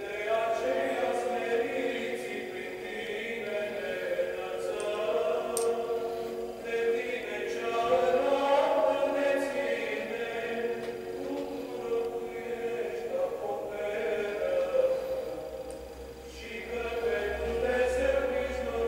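A choir chanting in long held notes, pausing briefly between phrases.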